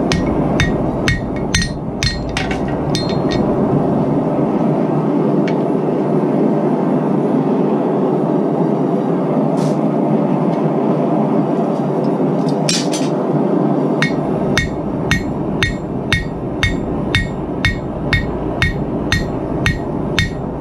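Small hammer striking a hot copper-and-nickel mokume gane billet with sharp, ringing metallic blows to tack the first forge weld: a quick flurry at first, a pause, then a steady run of about two blows a second in the second half. A loud steady forge roar runs underneath throughout.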